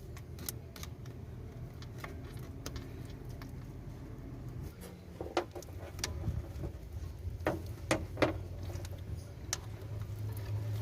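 Scattered light clicks and knocks of metal parts being handled while fitting a new outer CV joint onto a car's driveshaft, a few sharper ones in the second half, over a steady low hum.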